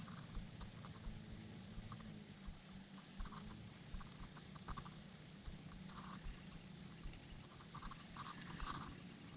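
Steady, high-pitched chorus of insects, crickets or cicadas, shrilling without a break. Short faint calls come and go underneath, over a low steady hum.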